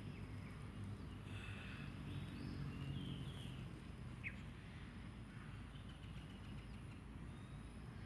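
Quiet outdoor ambience: birds chirping now and then, with a short sharp call about four seconds in, over a low steady rumble.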